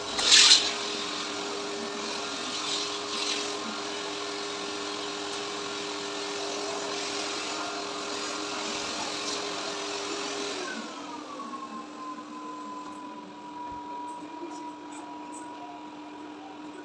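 AGARO ICON 1600-watt bagless cyclonic vacuum cleaner: a sharp click at the start, then the motor runs steadily. About ten seconds in it is switched off and its whine falls in pitch as the motor spins down.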